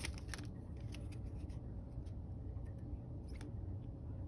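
Faint clicks and light handling noise of trading cards being slid and sorted by hand after a pack is opened, a few soft ticks spread through it over a low steady room rumble.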